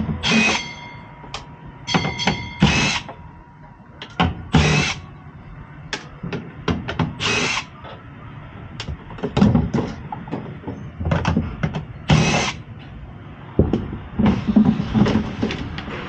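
Cordless power driver spinning screws on a gas furnace's sheet-metal cabinet in many short bursts, most under half a second long.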